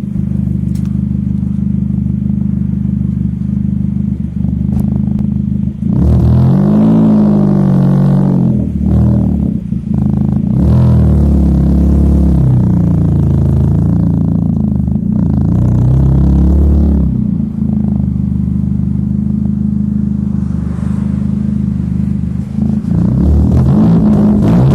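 Ford Fiesta Mk7 1.4 16-valve petrol four-cylinder engine breathing through a Simoni Racing aftermarket exhaust, idling, then blipped up and down in a series of revs from about six seconds in, settling back to idle, and revving again near the end.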